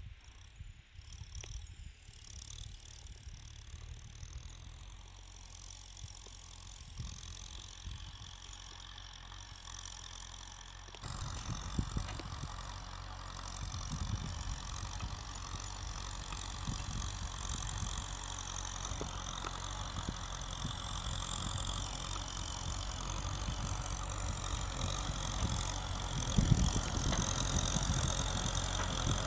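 Kubota tractor's diesel engine running, low and quiet at first, then much louder from about eleven seconds in and staying loud.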